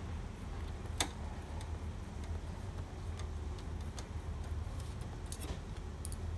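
A few sharp, isolated clicks of hands handling cables and connectors inside an opened HP Color LaserJet Pro M181fw printer, the sharpest about a second in, over a steady low hum.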